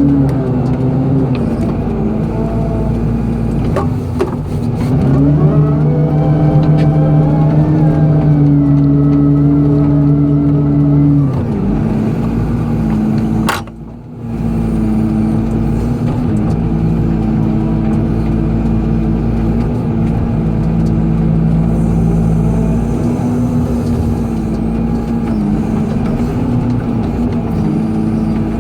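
Excavator's diesel engine running steadily, rising to a higher, louder pitch for about six seconds as the hydraulics take load, then settling back, with a brief sudden drop and click about halfway through.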